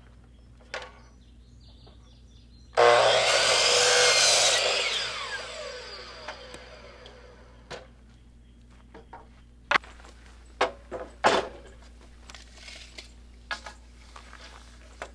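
DeWalt sliding miter saw starting up and crosscutting a wooden board for about two seconds, then its blade spinning down with a falling whine. Several sharp wooden knocks follow as the boards are handled.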